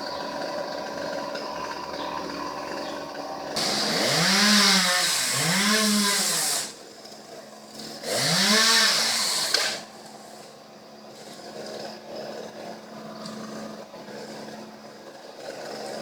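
Chainsaw engine revving up and falling back three times, twice in a row and then once more after a brief drop, with the saw idling steadily before and after.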